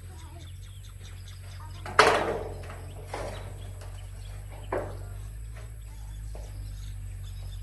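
A sharp, loud knock about two seconds in that rings out briefly, followed by fainter knocks, over faint bird chirps and a low steady hum.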